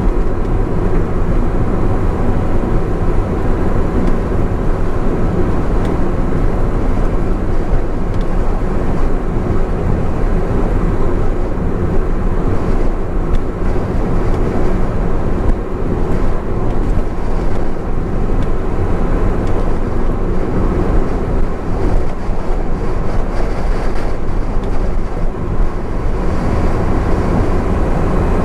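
Steady driving noise of a Honda S660 cruising on an expressway: tyre and road noise with the hum of its small turbocharged three-cylinder engine. The level holds steady, with no change in pace.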